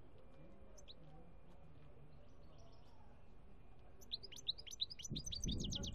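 European goldfinch singing: a few faint chirps, then about four seconds in a fast run of sharp, falling high notes, several a second. A low rumble joins under the song near the end.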